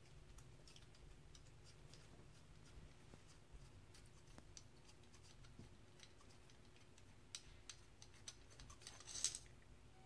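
Near silence, with faint small clicks and ticks of a dirt-bike carburetor's small parts being turned and handled by hand, a few of them a little louder about nine seconds in.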